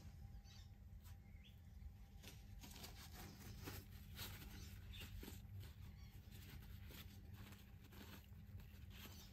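Near silence: room tone with a steady low hum and faint scattered ticks.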